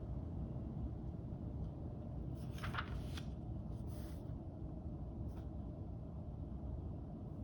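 Steady low room rumble with a few brief soft rustles in the middle.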